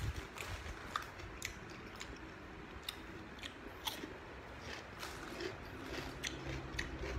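Close chewing and biting of raw pork koi salad with crisp fresh vegetables: irregular sharp crunches and mouth clicks, a few each second.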